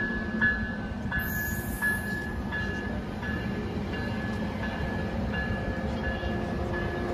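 Passenger train running with a steady low rumble, while a bell rings in an even beat, about three strikes every two seconds. A brief high hiss comes a little over a second in.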